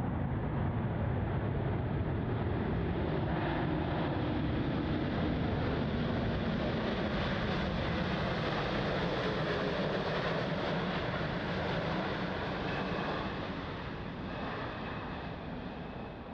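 Jet airliner's engines at takeoff power as it climbs out past: a loud, steady rush with a slowly falling tone, fading away over the last few seconds.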